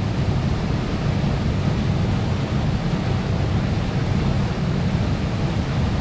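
Steady rushing of a mountain stream, an even roar of water that starts abruptly and holds a constant level.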